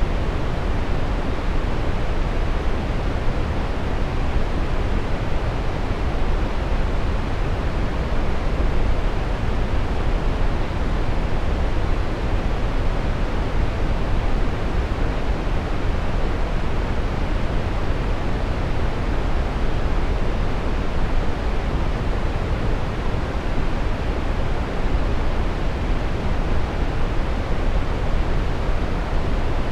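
Steady synthetic brown noise: an even, deep rushing hiss, strongest in the bass and rolling off toward the treble, with no changes.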